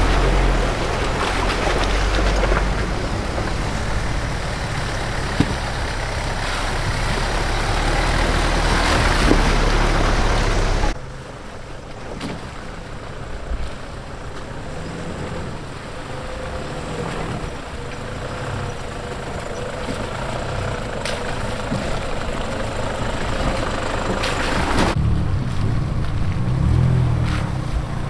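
Off-road 4x4s driving through a shallow creek: a Mitsubishi Pajero's engine running and water splashing close by, then, after a sudden drop in level about eleven seconds in, a quieter distant engine hum, with another SUV's engine growing louder as it approaches near the end.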